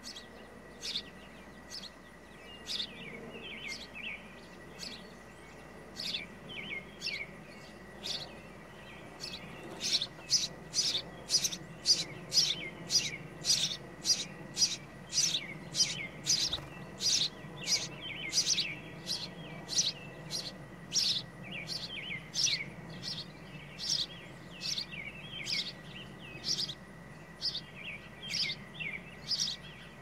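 Small songbird chirping repeatedly with short, sharp chirps. They come about one a second at first, then louder and faster, about two a second, from about ten seconds in.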